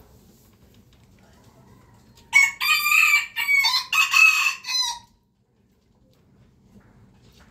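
A rooster crows once: a single cock-a-doodle-doo of about two and a half seconds in several phrases, starting a little over two seconds in and stopping sharply.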